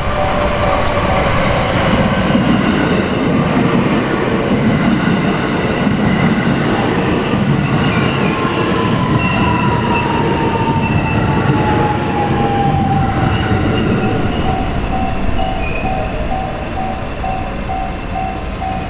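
Electric train passing over a level crossing, wheels running on the rails with a steady rumble. The crossing's warning bell rings in an even repeating pulse behind it, and a whine falls slowly in pitch around the middle.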